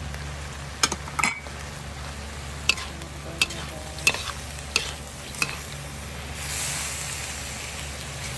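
Metal spatula scraping and knocking against a steel wok while stir-frying minced beef and freshly added shredded carrot, with about seven sharp clacks in the first five and a half seconds. A louder sizzle swells about six and a half seconds in.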